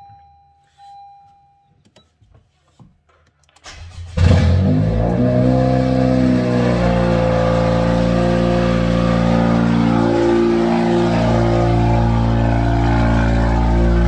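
Car engine starting about four seconds in: a brief crank, then it catches with a loud flare that settles within a couple of seconds into a steady, loud idle, heard from inside the cabin.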